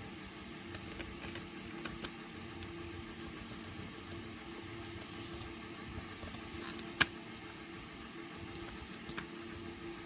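Hands handling a CD package: faint rustles and small clicks, with one sharp click about seven seconds in, over a steady background hum.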